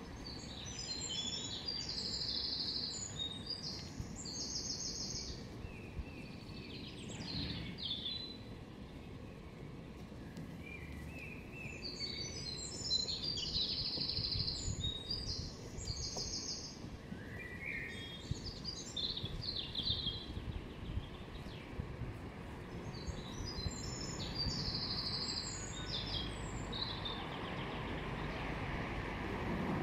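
A songbird singing phrases of fast, high notes and trills, four times several seconds apart, over a steady low outdoor rumble.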